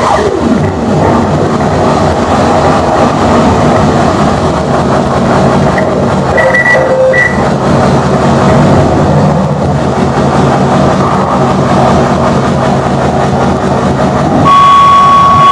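Live noise music from electronic gear and effects pedals: a loud, dense mass of distorted noise over steady low droning tones, with a couple of short chirps midway and a steady high tone cutting in about a second before the end.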